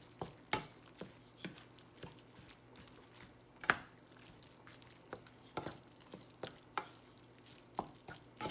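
Wooden spoon stirring crawfish tails and a thick cheese mixture in a pan, with irregular knocks and scrapes of the spoon against the pan, the loudest about halfway through.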